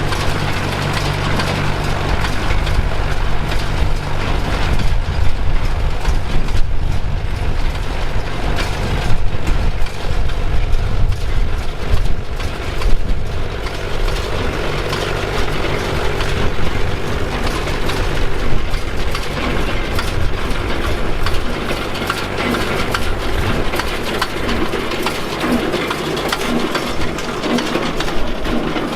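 John Deere 2140 tractor's three-cylinder diesel running with a John Deere 456 round baler working: a steady engine hum, clearest in the first few seconds, under a dense mechanical clatter and ratcheting of the baler's chains and gears.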